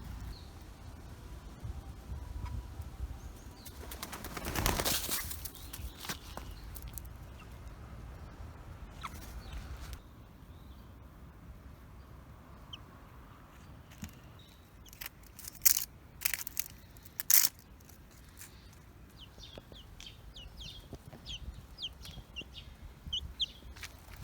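Baby Nagoya Cochin chicks moving about: a rustle of flapping wings about five seconds in, a few sharp loud clicks in the middle, then a quick run of short high peeps near the end.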